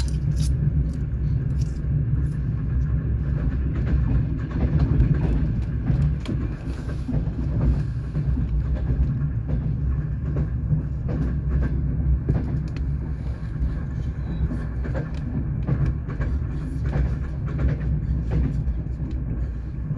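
Passenger train running: a steady low rumble of the carriage with the wheels knocking over the rail joints.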